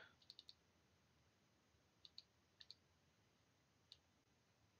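Faint computer mouse clicks in near silence: three quick clicks about a third of a second in, two close pairs around two and two and a half seconds in, and a single click near four seconds.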